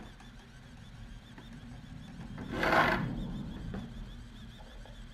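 Handheld 3D pen's extruder motor whirring steadily while feeding filament, with a brief loud hiss of noise about two and a half seconds in.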